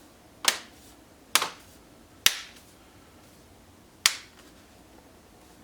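Snap-fit clips of a laptop's bottom cover clicking into place as the case is pressed shut: five sharp clicks about a second apart, with a longer pause before the fourth.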